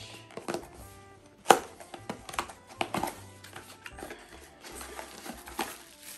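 Clicks, taps and rustling from handling the plastic parts and packaging of a suction car mount, with one sharp knock about a second and a half in. Faint music plays underneath.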